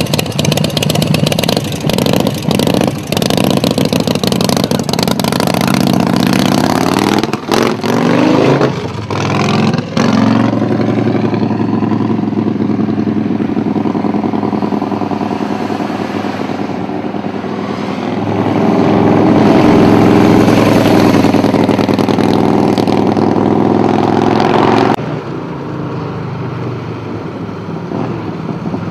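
Harley-Davidson V-twin motorcycle engines running and revving. The pitch rises several times in the first ten seconds as a bike accelerates, and the sound changes abruptly where recordings are cut together. The loudest stretch comes just past halfway and drops off suddenly a few seconds before the end.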